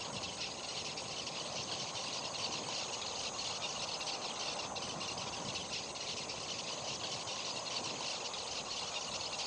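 Steady chorus of chirring insects, a continuous high buzz without breaks or pauses.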